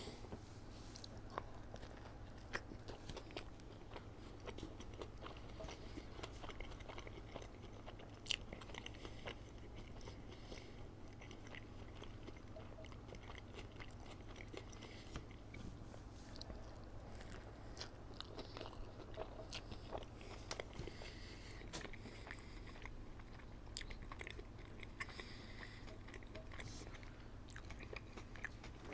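A person chewing and biting McDonald's food close to the microphone: a continual run of small wet clicks and crunches, with a steady low hum underneath.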